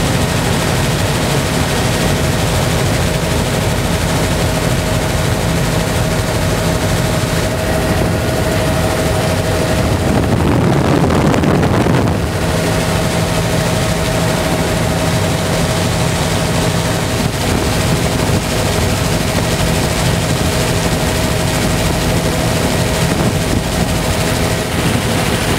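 Helicopter engine and rotor noise heard from aboard the helicopter: a loud, steady running noise with a constant whine over a low hum. About ten seconds in, a rushing surge rises for a couple of seconds while the whine drops out, then the steady sound returns.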